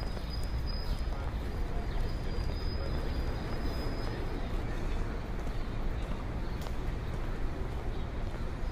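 Street ambience: a steady low rumble with a faint high tone in the first few seconds and a few faint clicks.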